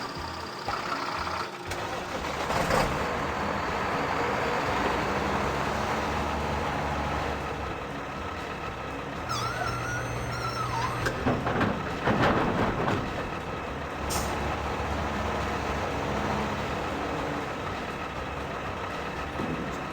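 Heavy vehicle engine sounds, truck-like and running steadily, with a short wavering high tone about halfway through.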